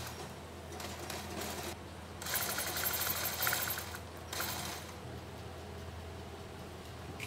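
Industrial post-bed sewing machine running in short bursts on a leather shoe upper, the longest run lasting about two seconds in the middle, over a steady low workshop hum.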